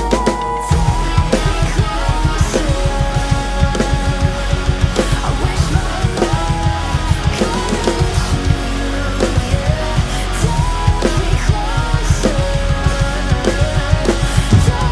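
Drum kit (PDP birch kit with a Pork Pie snare, crash and hi-hat cymbals, DW 7000 double bass-drum pedal) played along to a heavy rock track with guitars. Rapid, dense kick-drum strokes sit under the snare, cymbals and sustained melody lines.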